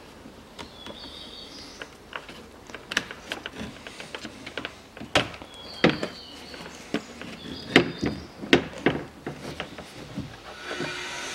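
Irregular clicks, knocks and rubbing of a plastic car door trim panel being handled against the door while the inside-handle cable is routed through it, busiest and loudest in the second half. A steady whirring noise sets in near the end.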